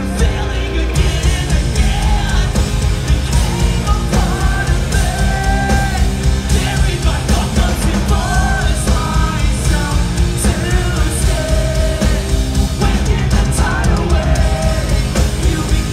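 A live rock band playing loud through the venue's sound system: electric guitars and drums under a sung lead vocal, recorded from inside the crowd.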